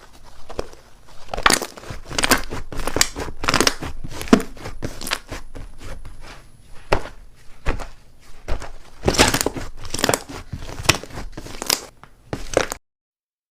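Slime being handled, making an irregular run of crackling, popping squelches; the sound cuts out abruptly near the end.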